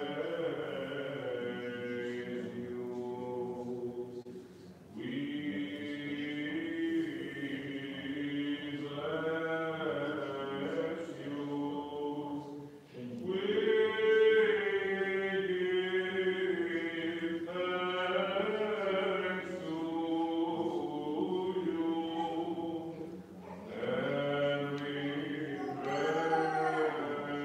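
Byzantine liturgical chant sung in long, drawn-out melodic phrases, broken by short pauses about 4.5, 13 and 23.5 seconds in.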